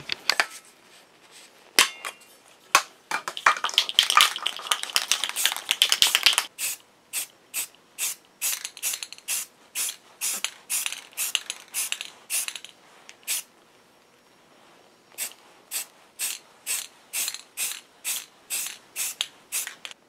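Aerosol can of Tremclad flat black rust paint being shaken, the mixing ball rattling inside it. A few loose clicks, a few seconds of dense rattling, then steady shakes at about two a second, with a short pause past the middle.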